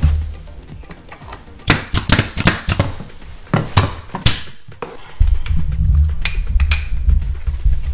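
Pneumatic nailer firing nails into baseboard trim: a run of sharp clacks, several in quick succession a couple of seconds in and a few more spaced out after. A low steady rumble comes in about five seconds in.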